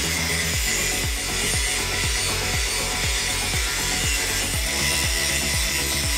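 Angle grinder cutting a metal differential tube: a steady high grinding hiss. Background music with a steady beat plays over it.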